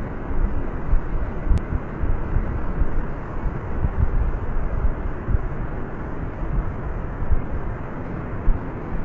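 Steady rushing roar of storm floodwater pouring down a flooded street, with wind buffeting the microphone in low gusts. One brief click about a second and a half in.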